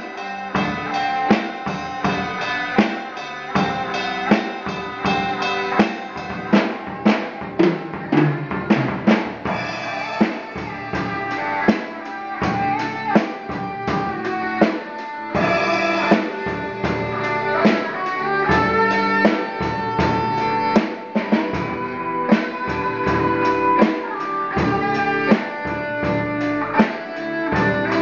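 Drum kit and electric guitar playing together live: a steady drum beat of kick and snare hits under a sustained electric-guitar melody line.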